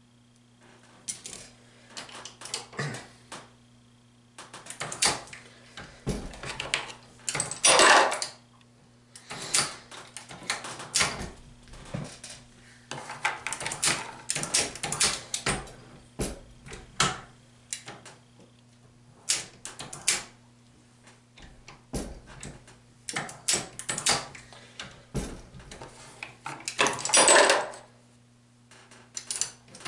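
Metallic clicks, clinks and knocks of .223 cartridge cases and bullets being handled and run through a Hornady Lock-N-Load single-stage reloading press to seat and crimp rounds, with two longer, louder rattling scrapes about 8 and 27 seconds in.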